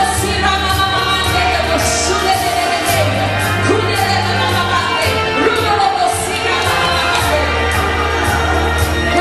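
Church choir and praise band performing a worship song: many voices singing together over a full band, with sustained bass notes and regular bright percussion hits.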